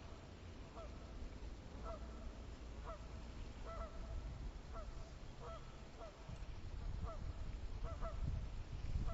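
A distant animal calling over and over, one short call about once a second, over a low rumble of wind on the microphone that grows louder near the end.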